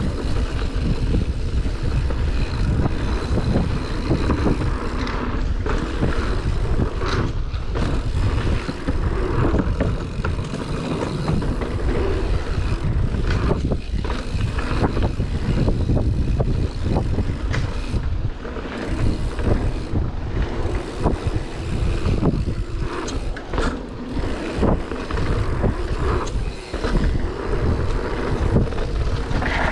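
Mountain bike being ridden down a dirt trail: a steady rumble of wind on the microphone, with frequent clicks and rattles from the bike and tyres over bumps.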